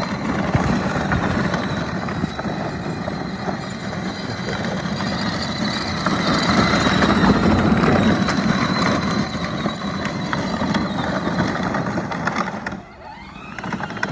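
A child's side-by-side UTV running as it is driven, a steady mechanical drone with a faint high whine that grows louder around the middle and falls away briefly near the end.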